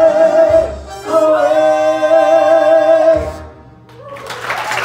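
A male vocal trio singing the closing held chord of a song in close harmony, with vibrato, in two long sustained notes with a short break between them. Near the end the singing stops and audience applause starts.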